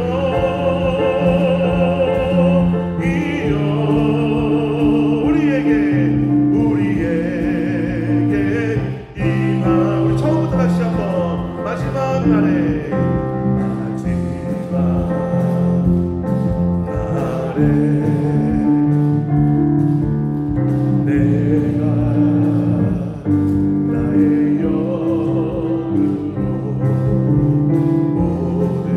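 Church praise band playing a gospel worship song: electric bass guitar, drum kit and keyboard under singing voices holding long notes with vibrato.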